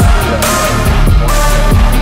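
Background electronic dance music with a deep bass line and a steady beat of drum hits.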